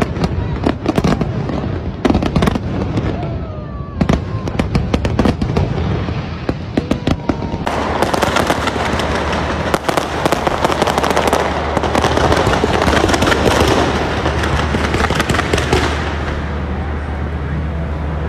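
Aerial fireworks display: a quick run of sharp bangs from shells bursting, then from about eight seconds in a dense, continuous crackle of many bursts that thins near the end.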